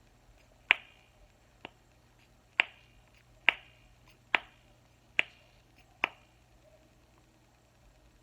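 Plastic snap fidget toy (a snapper) being clicked: seven sharp snaps just under a second apart, the second one faint, ending about six seconds in.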